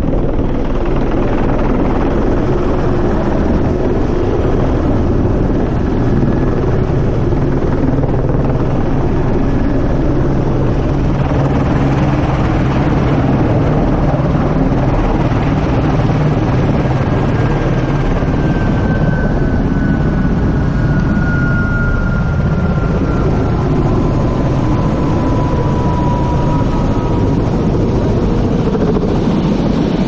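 Helicopter engine and rotor running loud and steady close by as the aircraft sets down and sits on the pad. In the second half a faint whine slides slowly down in pitch.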